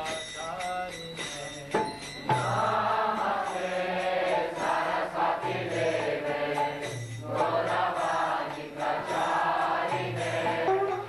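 Group kirtan: many voices chanting a mantra in unison to a mridanga hand drum with steady percussion strokes. A quieter lead line is answered by the full group, which comes in louder about two seconds in.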